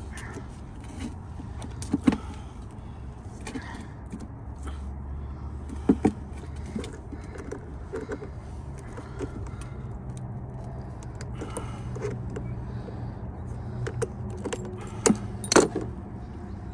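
Metal clicks and snaps of Knipex diagonal cutters gripping and squeezing a small metal crimp clamp on a rubber intake-hose fitting, trying to cut it off. Sharp snaps come about 2 s and 6 s in and twice near the end, over a steady low hum.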